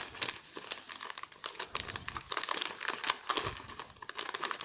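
Small plastic sachets of bait pellets crinkling as they are handled and shuffled in the hands: an irregular run of crackles.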